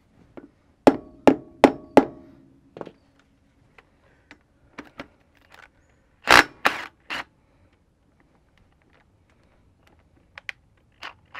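Rubber mallet tapping a socket four times to seat it on a freewheeling hub bolt, each tap with a short metallic ring. About six seconds in, a cordless impact wrench hammers briefly to undo the bolt, with short bursts again near the end.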